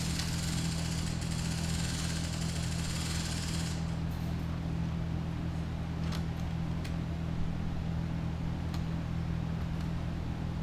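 A steady low hum, with a hiss over it that cuts off about four seconds in. A few light clicks follow as the bolts and washers are handled and fitted.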